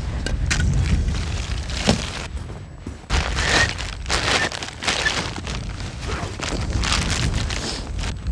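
Wind buffeting the microphone in a low rumble, with irregular rustling and crunching as ice chunks and a nylon tarp are handled in the snow.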